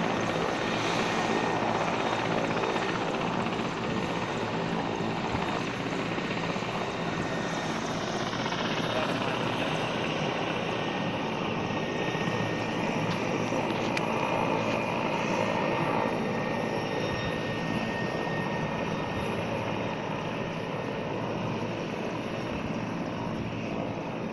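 Large Indian Air Force helicopter's rotors and turbine engines running steadily as it comes in and settles on the helipad, with a whine that drops in pitch about eight seconds in.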